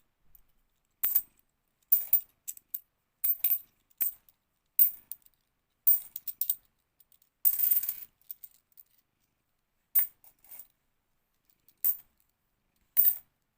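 50p coins clinking as they are handled and dropped during sorting: a string of separate sharp metallic clinks, with a longer rattle of coins sliding together a little past halfway.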